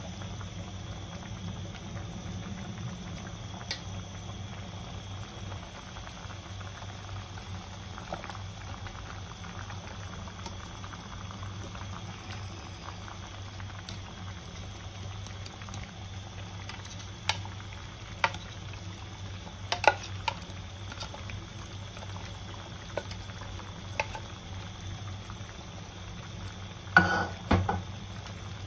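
Pork pieces simmering in broth in a pan, a steady bubbling. Now and then come sharp knocks and clatter as sliced bitter melon is added and stirred with a wooden spatula, the loudest a cluster near the end.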